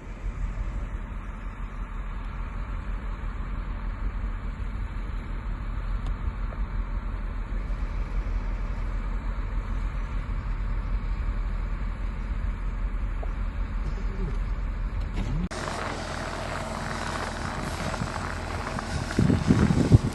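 Steady low drone of a running vehicle engine, muffled. About fifteen seconds in it changes abruptly to wind rushing over the microphone, with loud gusts near the end.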